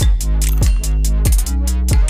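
Electronic background music with deep held bass notes and a fast, steady drum beat.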